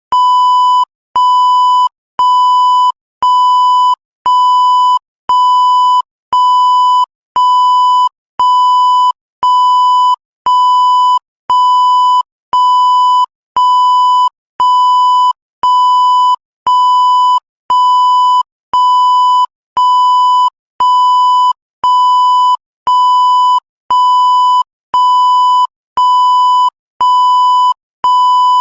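Electronic beep tone repeating about once a second, each beep a steady high-pitched note held for most of the second with a short gap between, unchanging throughout.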